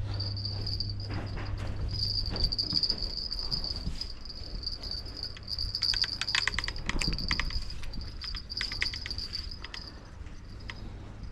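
Insects trilling in one steady high note, with bursts of quick clicking and rattling about six and nine seconds in.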